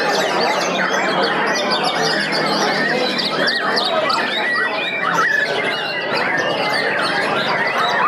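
Many caged white-rumped shamas singing at once in a contest: a dense, unbroken chorus of overlapping whistles, trills and chirps.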